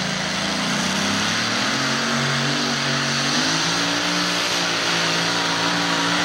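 Engines of a modified pulling tractor running hard as it drags the weight sled, the pitch climbing over the first three seconds or so and then holding steady at high revs.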